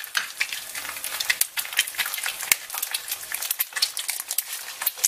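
Food sizzling as it fries: a dense, irregular crackle of pops over a hiss, starting abruptly.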